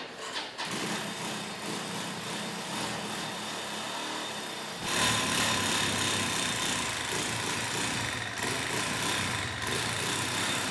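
Motorcycle engine running steadily, getting louder from about five seconds in.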